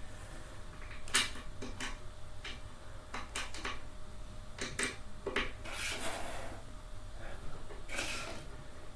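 Light metal clicks and knocks from a gaming chair's armrest and its bolts being handled and fitted, with two longer scraping sounds about six and eight seconds in.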